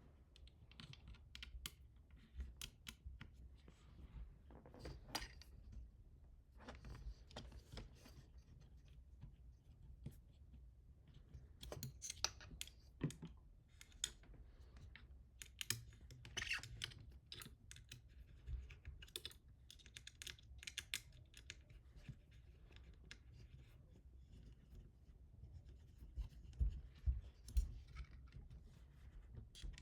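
Irregular small clicks, taps and scrapes of hardware and printer parts being handled and fitted during hand assembly, with denser clusters of clicks now and then.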